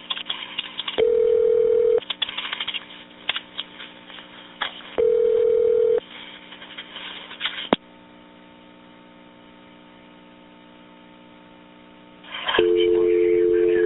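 Telephone line audio on a 911 recording: a ringing tone sounds twice, about a second each and four seconds apart, with line crackle between. A faint steady line hum follows, and near the end a two-note dial tone comes on.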